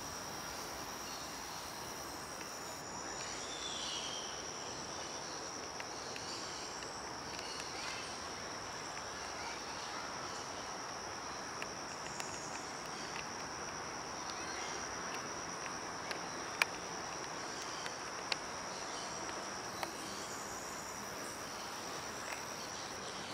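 An insect droning in one steady high-pitched note over an even hiss of forest ambience, with a few sharp clicks in the second half.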